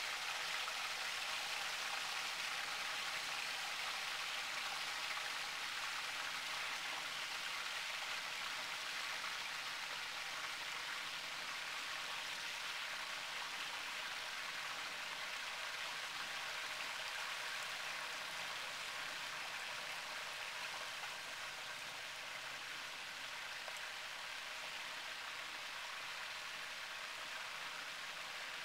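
A whole turkey deep-frying in a pot of hot oil: a steady sizzle of the oil bubbling around the bird, easing a little in loudness over the stretch.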